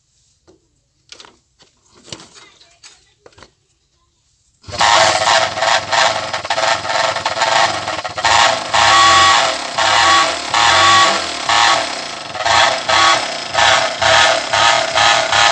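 A few faint clicks, then, about five seconds in, a motorcycle engine starts running loudly through its silencer. Its level rises and falls in repeated surges.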